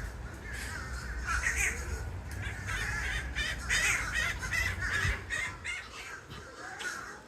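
Crows cawing, a rapid run of harsh caws about three a second in the middle, over a low rumble.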